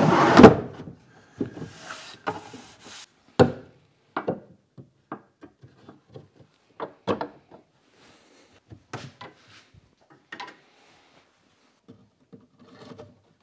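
Wooden hand saw and plane till knocking and scraping into place inside a plywood cabinet. This is loudest in the first second. It is followed by scattered light wooden knocks and clicks as hand tools are set into the till's slots.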